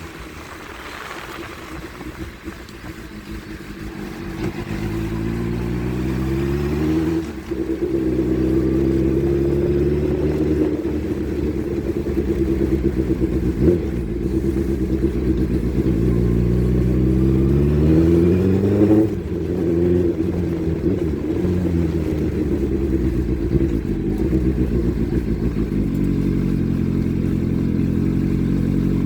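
Motorcycle engine under way, quieter at first, then pulling hard: its pitch climbs and drops sharply at gear changes about seven and nineteen seconds in, then climbs again near the end.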